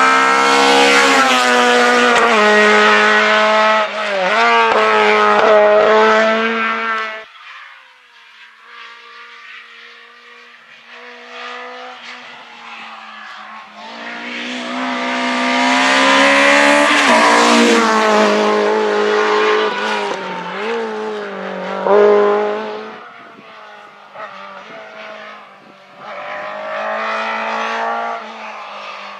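Rally car engines revved hard, the pitch climbing and dropping through gear changes as a car drives the stage. The sound falls back about seven seconds in and swells again in the middle. Another car's engine rises as it approaches near the end.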